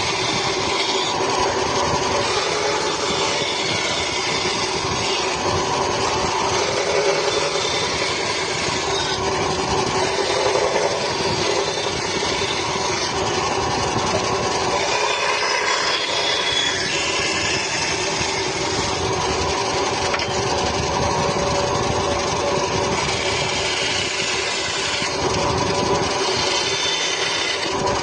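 A power tool motor running steadily, working wood.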